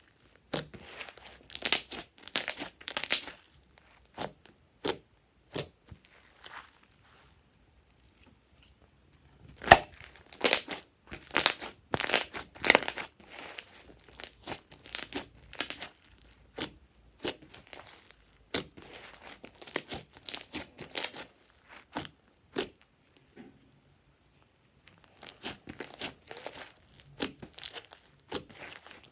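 Slime being worked by hand: irregular sticky crackles and crinkling in clusters, with two short pauses.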